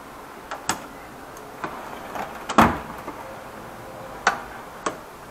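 Steel drawers of a Craftsman tool chest being shut and pulled open, with light metal clicks and clinks spread through. The loudest sound is a drawer sliding and banging about two and a half seconds in.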